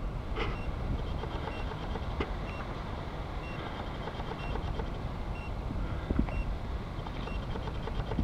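A steady low rumble with faint, short, high beeps repeating at a regular pace, and a few soft knocks.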